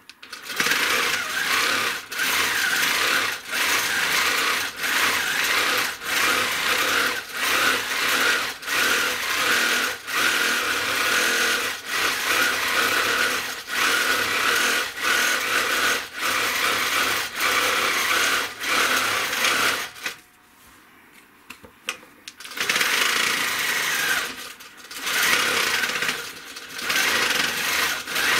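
Handi Quilter longarm quilting machine stitching in short runs of about a second each, with brief dips between as the head is guided along a quilting ruler. It stops for about two seconds around twenty seconds in, with a few small clicks, then stitches on again.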